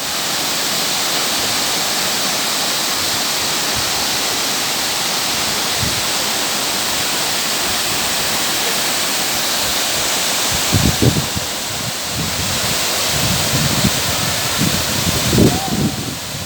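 Waterfall: the steady rush of the Rio Bonito falls, a loud even roar of falling water, with uneven low rumbles over it about two-thirds of the way in and near the end.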